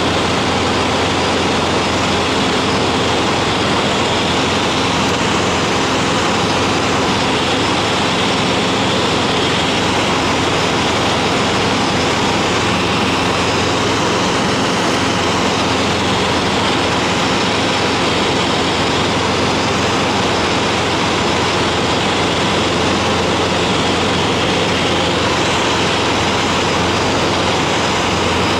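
Steady cabin drone of a Cessna 150 in cruise: its four-cylinder Continental O-200 engine and propeller running at constant power, mixed with rushing wind noise, heard inside the cockpit.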